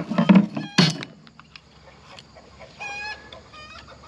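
Chickens calling: two short, steady-pitched squawks about three seconds in. Before them, loud knocking and handling noise fills the first second.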